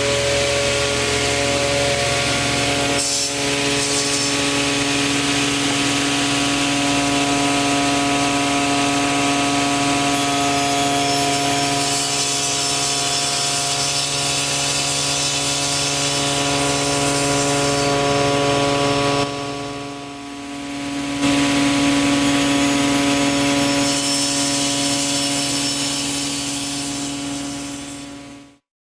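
SCM Nova SI 400 sliding table saw running, its main and scoring blades spinning with a steady multi-toned hum while cutting wood, the cutting noise swelling twice. The sound briefly drops about two-thirds of the way through, then fades out near the end.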